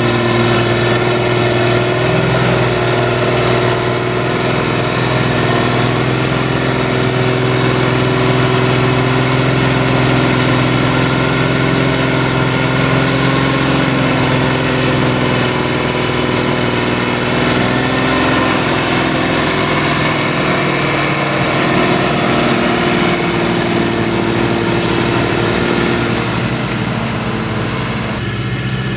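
Fiat 1380 DT tractor's six-cylinder diesel engine running steadily under heavy load while pulling a plough through wet, muddy soil. The engine note holds at an even pitch and shifts slightly near the end.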